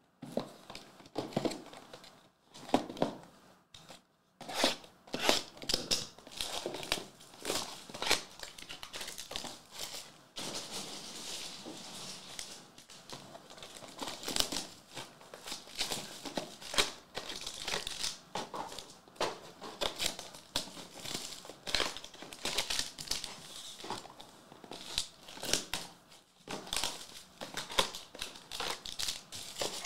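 Hands handling and tearing open Panini Prizm Choice soccer card boxes: cardboard flaps and wrapping tearing and the green foil packs inside crinkling, in irregular rustles and crackles.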